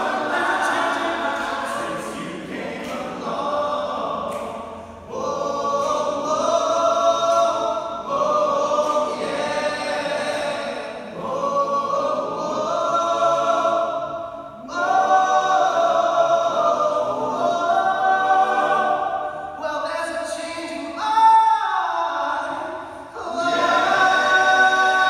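All-male a cappella group singing in close harmony with no instruments, holding chords in long phrases with short breaks between them. About three-quarters of the way through, one voice slides down in pitch over the chords.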